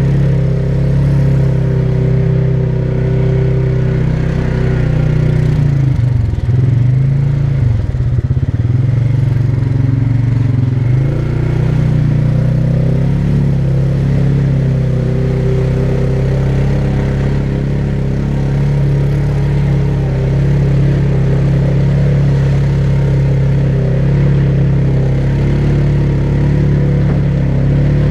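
ATV engine running steadily under throttle. Its pitch dips and climbs back several times between about six and eleven seconds in as the throttle is eased off and opened again.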